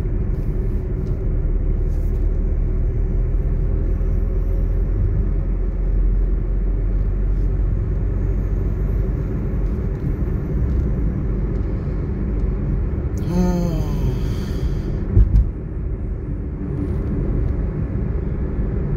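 Steady low rumble of road and engine noise inside a moving car's cabin. About two-thirds of the way in there is a brief pitched sound, followed soon after by a short thump.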